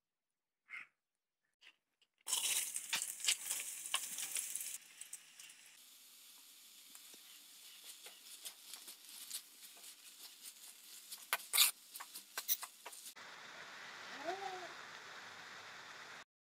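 Food frying in hot coconut oil in an aluminium kadai: a loud burst of sizzling and crackling about two seconds in, then steadier sizzling of sliced onions with a metal spoon clicking and scraping against the pan. A brief pitched sound near the end.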